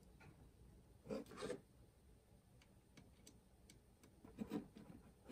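Faint rubbing and light ticks of a small wood screw being turned by hand through the sign's metal rod into a wooden dowel. There are two soft rubs about a second in and a few more near the end.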